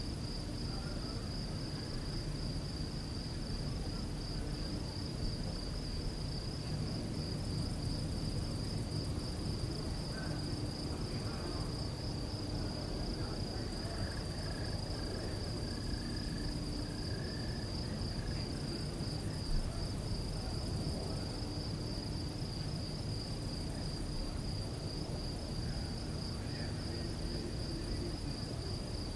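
Crickets chirping: a steady, fast-pulsing high trill that never lets up, over a low, even background rumble.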